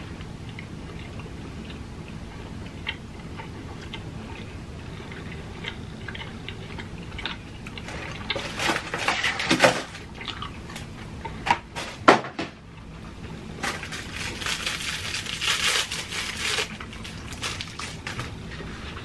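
Close-miked eating sounds: wet chewing and mouth noises with scattered small clicks. There are louder spells of handling food about halfway through and again later, with a couple of sharp clicks in between.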